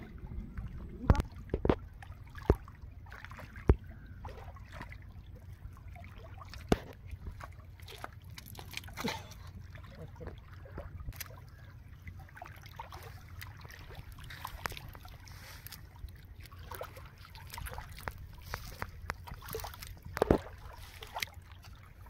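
Water sloshing and trickling as a cast net is worked in a river and hauled out onto the mud. Scattered sharp clicks and knocks sit over a steady low rumble.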